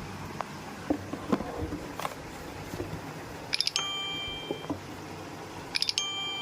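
Keyboard and packaging being handled, with scattered clicks and rustles. Twice, a little over two seconds apart, a quick run of clicks is followed by a bright chime that rings for about a second.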